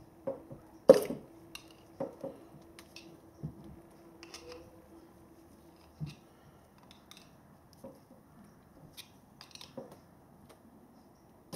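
Screwdriver tip clicking and scraping against the plastic parts of an oil filter cap as it is slowly pried loose: scattered light ticks, with one sharper click about a second in.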